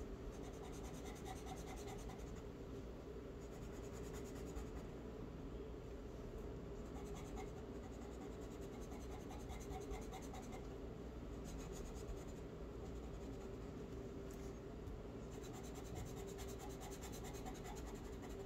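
Charcoal scratching on paper in quick, repeated shading strokes as an area is darkened. The strokes are faint, over a steady low hum.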